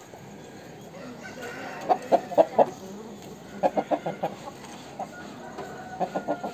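Aseel chickens clucking in short runs of quick, sharp clucks, a burst of four about two seconds in, a longer run of about six a moment later, and a few more near the end.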